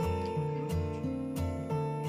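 Background music with a steady beat, low bass notes and held melody notes that change in steps.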